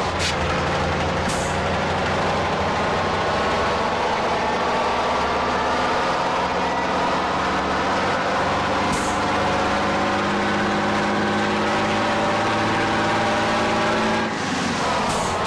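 Truck engine sound of an Isuzu Elf light truck driving, its pitch climbing slowly as it speeds up, then dropping sharply near the end. A few brief hisses come through over it.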